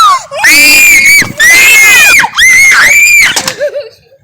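A child screaming loudly and high-pitched, about four long screams one after another that stop about three and a half seconds in.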